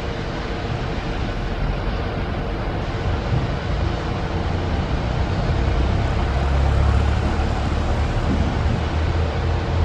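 WDG3A diesel-electric locomotive running light, its ALCo 251 V16 diesel engine giving a deep, steady drone with a faint hum. The rumble grows louder from about halfway through as the locomotive approaches.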